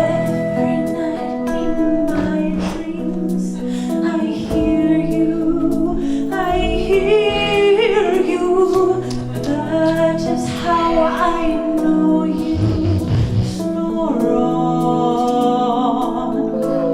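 Slow ballad music with a woman's wordless vocal, sliding in pitch, over instrumental backing.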